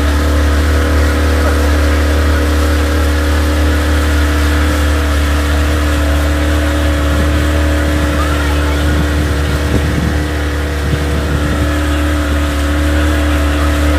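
Boat engine running at a steady pace with a deep, even hum, and water rushing past the hull.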